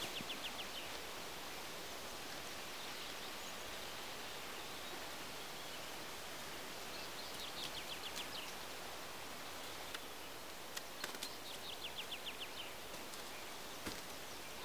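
Outdoor forest ambience with a steady hiss, through which a bird sings a short, rapid falling trill three times. Near the end, a few sharp cracks and rustles come from someone moving through undergrowth.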